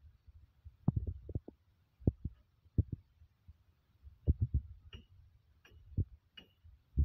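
Irregular dull low thuds over a low rumble: footsteps and handling bumps picked up by a hand-held phone's microphone while walking across a rebar-laid roof slab. A few faint, short high chirps come in the second half.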